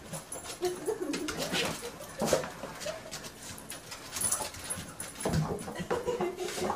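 Dog whining in short, wavering, high-pitched cries of excitement while it jumps and licks at a person, with scuffling and clicking in between.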